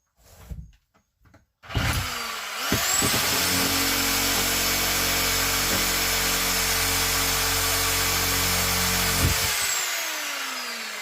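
Circular saw starting about two seconds in, its whine rising as it comes up to speed, then running steadily as it cuts into the camper's floor. Near the end the trigger is released and the blade coasts down with a falling whine.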